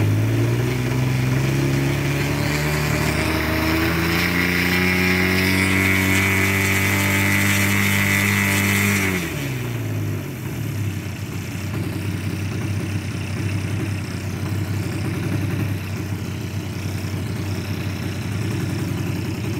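DA-70 twin-cylinder two-stroke gas engine with a canister muffler, in a 120-inch RC Turbo Bushmaster held on the ground, run up: the throttle is raised and held high for several seconds, then dropped back to idle about nine seconds in, where it idles steadily.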